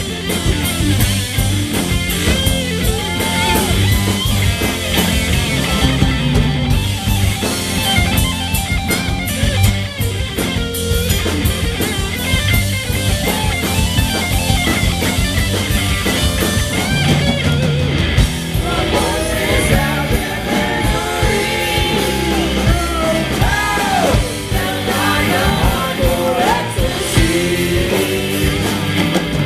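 Live rock band playing at full volume: drum kit, bass and electric guitar, with a bending lead melody over them.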